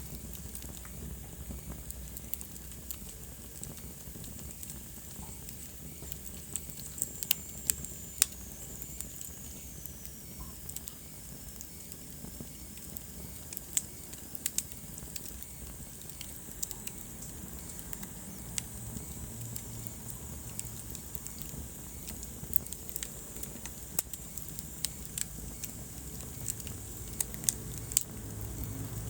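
Wood fire burning in a fireplace: a low steady hiss with irregular sharp crackles and pops. A faint high whistle slides down in pitch from about seven to eleven seconds in.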